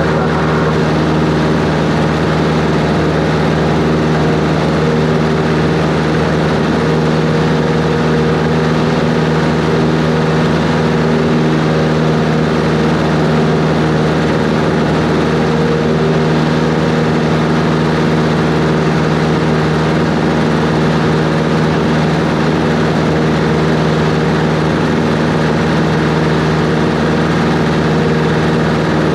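Cessna 140's four-cylinder piston engine and propeller running at a steady, unchanging drone.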